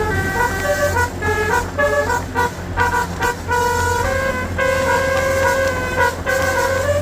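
Basuri musical horn on a tour bus playing a telolet melody: a run of quick, choppy notes followed by longer held notes, over a steady engine hum.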